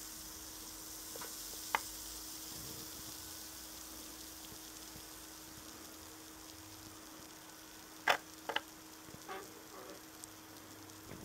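Acid fizzing on a rock where drops from a glass dropper foam on its surface: a faint, steady hiss of bursting bubbles that slowly weakens. The effervescence is the sign that the rock contains carbonate. A few small clicks, the loudest two in quick succession about eight seconds in.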